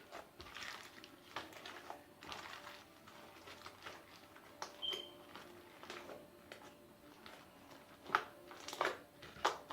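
Homemade glue slime with confetti mixed in, squeezed and worked by hand, giving irregular crackling crunches that grow louder in the last two seconds.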